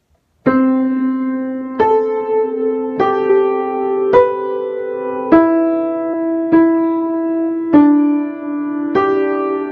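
Piano playing eight single notes, one about every second and a bit, each left ringing under the next. The notes spell out a name letter by letter, counting up the alphabet from the A below middle C.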